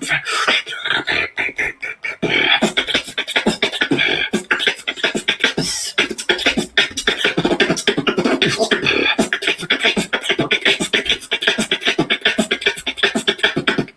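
Human beatboxing: a fast, continuous routine of mouth-made drum sounds (kicks, snares and hi-hat clicks), several strokes a second, with short pitched vocal sounds woven in.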